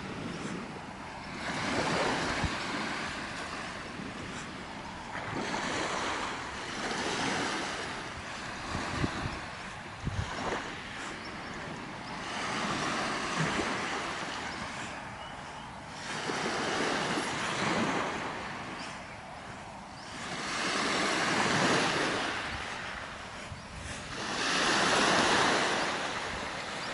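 Small waves breaking and washing up on a sandy shore, a hissing swell that rises and fades every few seconds. A few brief knocks come about nine to eleven seconds in.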